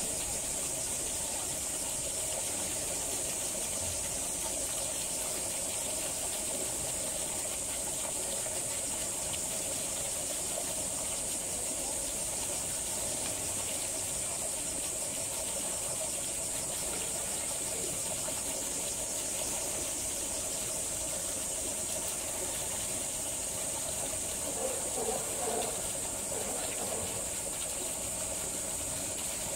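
Steady outdoor background noise: a constant high-pitched hiss over a lower steady drone, with some brief wavering sounds about 25 seconds in.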